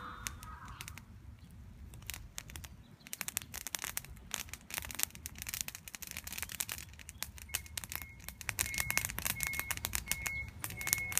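Bamboo and wood fire crackling, with dense irregular pops over a low rumble. In the last few seconds a high, short note repeats at a steady pace.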